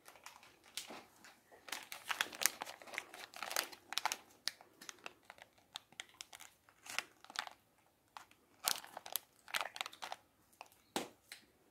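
Reese's Big Cup candy wrapper crinkling as it is handled, in irregular crackles with a couple of brief pauses midway.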